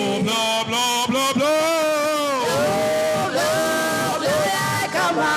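A man's voice chanting in long, sliding, held notes with no recognisable words, the ecstatic sung prayer of a worship leader.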